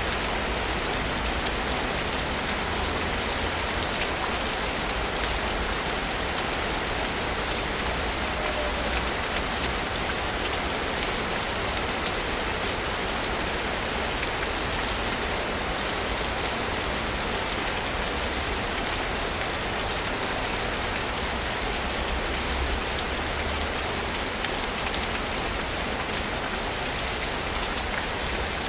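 Steady rain falling in a city, an even hiss of rainfall with scattered drops ticking on hard surfaces.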